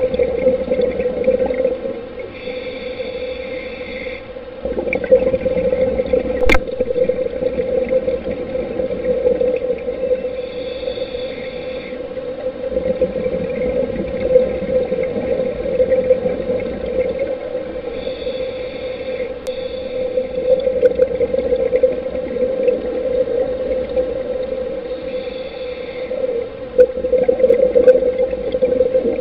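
Underwater sound of a scuba diver breathing on a regulator: a short hiss about every eight seconds, each followed by a rumbling rush of exhaled bubbles, over a steady muffled drone.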